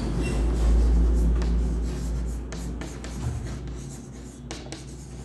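Chalk scratching across a blackboard as a word is handwritten, with a few sharp taps of the chalk from about halfway through. A low rumble sits underneath for the first few seconds and fades.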